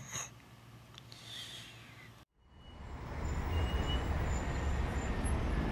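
A puppy's last short snore at the very start, then a quiet lull and a brief dropout. After that a steady low outdoor rumble fades in and holds, the ambience of a street at night.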